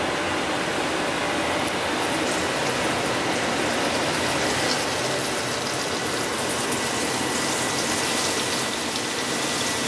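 Breaded catfish strips frying in hot oil in a shallow frying pan: a steady sizzle with small crackles and pops as more pieces are laid in.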